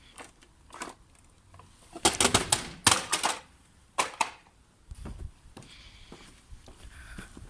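A series of hard clicks and knocks, with a dense clatter of loud impacts about two seconds in and one more sharp knock a second later.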